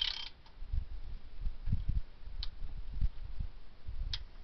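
Ratchet wrench clicking briefly at the start as it tightens a rocker arm nut on a GM 250 straight-six, bringing the valve to zero lash. This is followed by a couple of single metallic clicks and several dull low knocks from handling the valvetrain.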